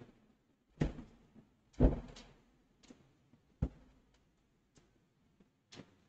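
A few separate sharp knocks and thumps, the loudest about two seconds in, with faint ticks between them.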